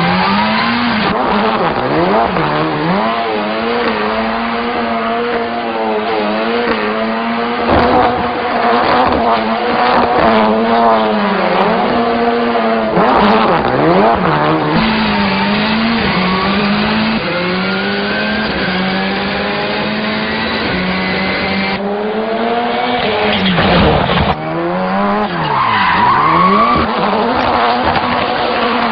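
Ford Fiesta drift car's engine held at high revs, its pitch repeatedly dipping and climbing as the throttle is blipped through the slides, with tyres skidding and squealing on the tarmac.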